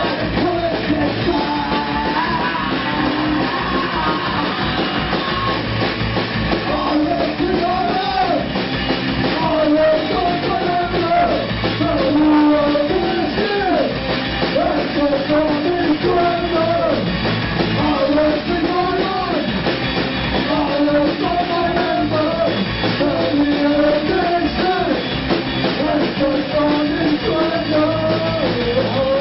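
Live rock band playing: electric guitar, bass guitar and drum kit, with a man singing over them.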